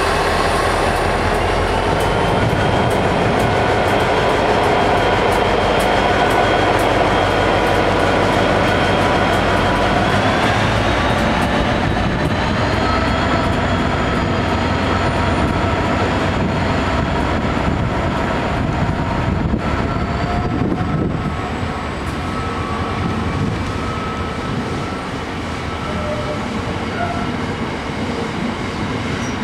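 Class 59 diesel-electric locomotive, with its two-stroke V16 engine, passing close by at loud, steady level; its engine note steps up in pitch about ten seconds in. The rumble and clatter of heavy bogie box wagons rolling by follows, with thin squeals from the wheels.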